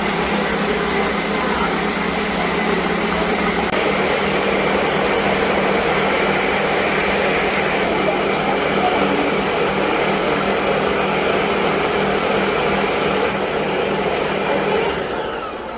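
Kitchen blender motor running steadily while chopping grapes into juice, with a loud whirring hum. The motor winds down near the end.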